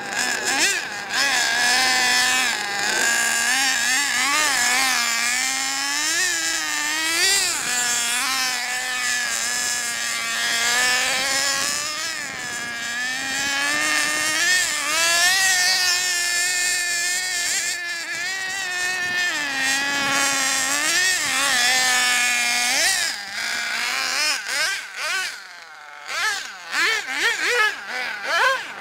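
Small nitro engine of a 4tec RC car (Picco .21) running hard as the car is driven, its pitch rising and falling again and again with the throttle. Near the end it drops quieter and turns choppy.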